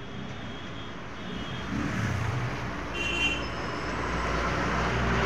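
Road traffic noise with a low engine rumble, growing louder over the last few seconds as a vehicle draws near, and a brief high tone about three seconds in.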